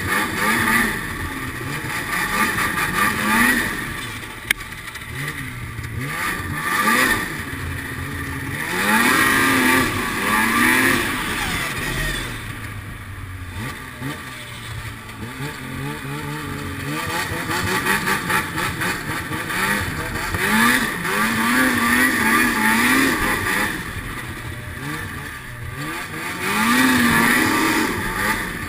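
Snowmobile engine revving up and falling back again and again as the sled is ridden, its pitch rising and dropping with the throttle. There is a single sharp click a few seconds in.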